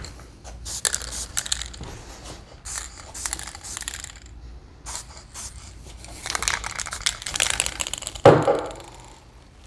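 Aerosol can of Mohawk wood toner being shaken, its mixing ball rattling in quick clacks in several spells, with a denser stretch of rattle and spray hiss about six to eight seconds in. A single loud thump comes just after eight seconds.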